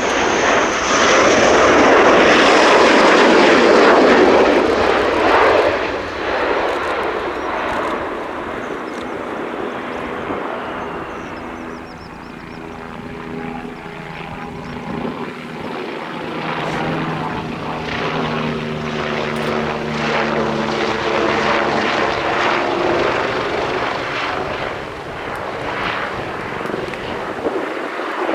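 Military jet aircraft passing: a loud jet roar that peaks a few seconds in and fades, then a quieter engine whine with several steady tones for the rest of the time.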